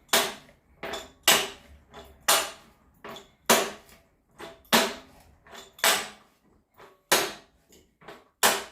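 Sharp metallic clanks at a steady pace of about one loud strike every second or so, each with a short ring, with fainter knocks between. They come from work with metal tools on a water heater's heating element while it is being tightened into the tank.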